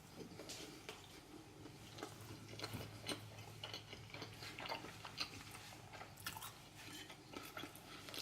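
Close-up chewing of a soft microwaved cheeseburger: quiet, irregular wet mouth clicks and smacks.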